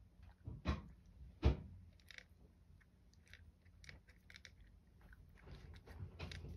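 Domestic cat crunching dry kibble: an irregular run of small crisp crunches, with two louder ones about one and one-and-a-half seconds in.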